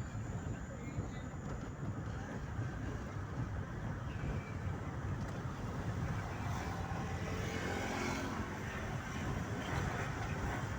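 A motor vehicle passing by over a steady background rumble: its engine noise swells, peaks about eight seconds in and fades away.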